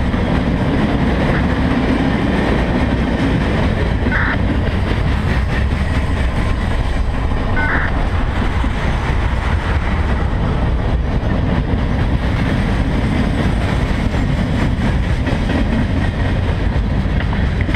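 Freight cars of a CSX train rolling past close by as it rounds a curve: a loud, steady rumble of steel wheels on rail, with two brief high squeals about four and eight seconds in.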